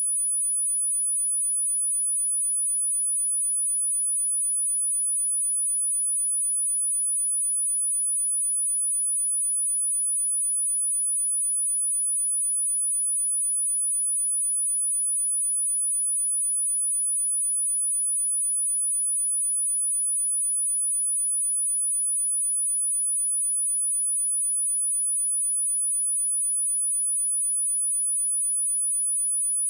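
A pure 9896 Hz sine-wave test tone, a single steady high-pitched whistle held at constant level.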